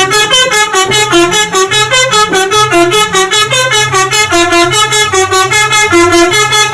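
Multi-tone "telolet" bus horn playing a quick tune, its notes stepping up and down in an even rhythm.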